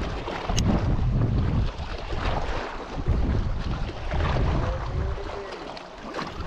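Wind buffeting the microphone in gusts, easing off after about five seconds, with a few light clicks as the baitcasting reel's handle and drag are worked, one sharp click about half a second in.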